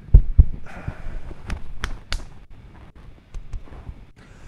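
Handling noises from hands moving close to a clip-on microphone: two dull thumps in the first half-second, then a brief rustle and several light clicks.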